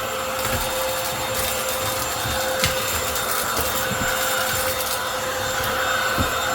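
Cordless stick vacuum running steadily on the floor, a constant motor whine over a rushing hiss, with a couple of light knocks.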